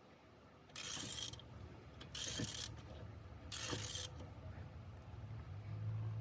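Three short bursts of wrench clicking, about a second and a half apart, as a lug nut backed by washers is turned to draw a new wheel stud into the hub. A low steady hum comes in near the end.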